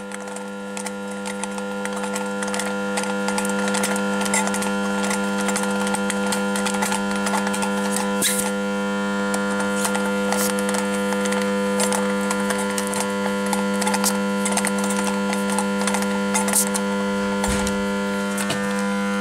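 A steady electric hum with evenly spaced overtones, growing louder over the first few seconds, with scattered clicks and knocks of a compression tester's hose and fittings being handled on the engine's cylinder head.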